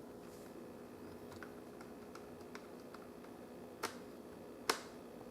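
Light clicks and taps of small screws, a screwdriver and plastic laptop screen parts being handled, over a faint steady hum. Two sharper clicks come in the last second and a half, the second the loudest.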